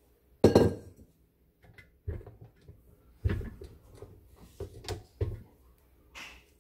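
Kitchen knocks and clunks of a stand mixer's beater against a glass mixing bowl as the mixture is knocked and scraped off it: a sharp clunk about half a second in, then four duller knocks, and a short scrape near the end.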